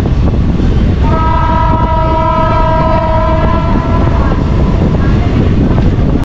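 Moving passenger train rumbling along with heavy wind noise, and the locomotive's horn sounding one long steady blast, a chord of several tones, from about a second in to the middle.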